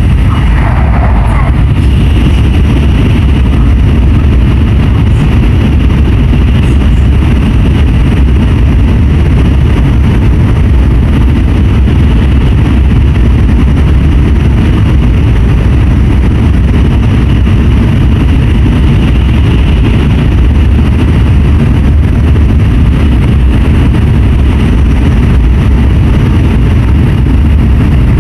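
Steady running noise of an N700S Shinkansen at speed: a constant low rumble with an even hiss above it.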